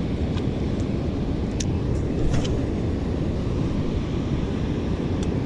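Wind buffeting the microphone on an open boat: a steady low rumble, with a few faint clicks.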